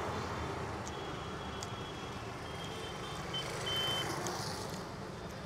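Steady street traffic noise with a low hum, with faint, high-pitched beeping tones around the middle.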